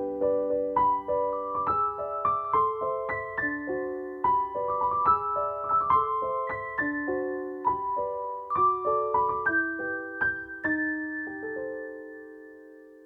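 Background music: a gentle solo piano melody of slow, separate ringing notes, with the last note fading away near the end.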